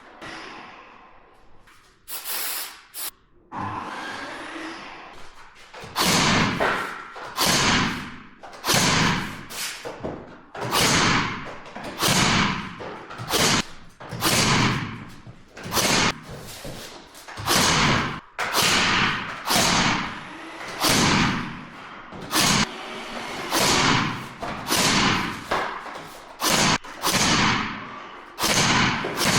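Repeated heavy thuds: a few scattered knocks at first, then from about six seconds in a regular thud roughly every second and a half, each with a short ringing tail.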